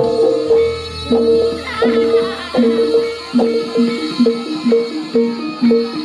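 Live traditional Javanese jaranan ensemble playing: struck pitched percussion repeats a quick two-note figure over drums.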